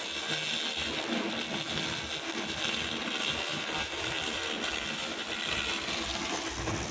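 A 200 W pulsed fiber laser cleaning head ablating rust and coating from a wood and metal sample makes a steady hiss, with a steady low hum underneath.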